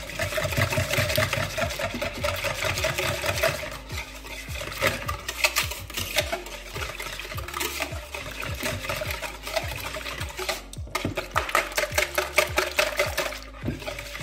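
Wire whisk beating a thin milk, egg and yeast mixture in a plastic bowl: rapid, even clicking and sloshing, broken by a few brief pauses.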